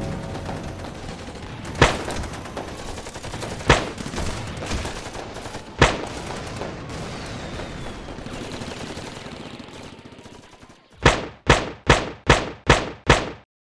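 Gunshot-like sound-effect bangs over a fading dark ambient bed: three single bangs about two seconds apart, then near the end six sharp bangs in quick succession, about three a second, each landing with a word of on-screen text.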